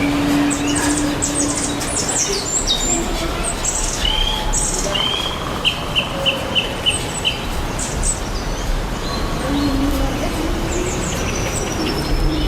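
Several birds chirping and calling at once: many short high chirps, with a run of about six quick repeated notes in the middle.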